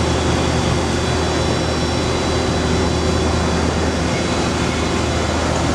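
Acer AGS-2040AHD automatic surface grinder running under power: a loud, steady machine hum and whir with a low drone that does not change.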